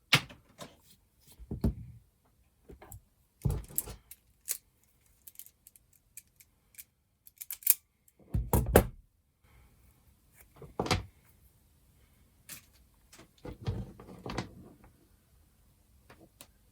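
Irregular clicks, snips and thuds of hand tools and a USB power cable being handled on a workbench while the charger end is cut off the lead, with a few heavier knocks among the lighter clicks.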